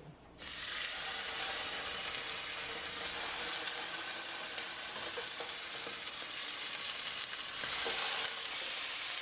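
Food sizzling in hot sesame oil in a frying pan: a steady frying hiss that starts abruptly about half a second in, with a few faint pops.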